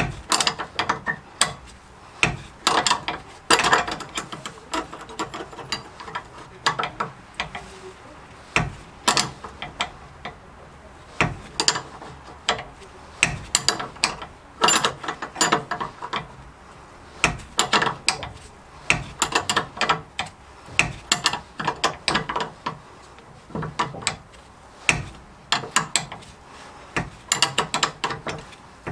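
Hand socket ratchet wrench clicking in short, irregular runs of clicks.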